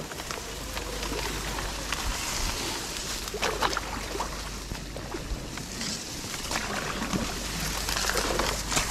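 Reed stalks rustling and scraping against an inflatable kayak and its paddle as it is pushed through dense reeds, with paddle strokes in the water; the rustling comes in louder bursts every second or two.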